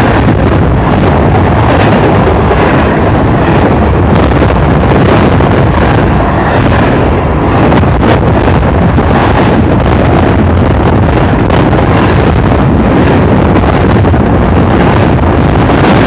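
Intermodal freight train passing at close range: a loud, steady rumble of steel wheels on the rails as trailer flatcars and double-stack container cars roll by, with wind buffeting the microphone.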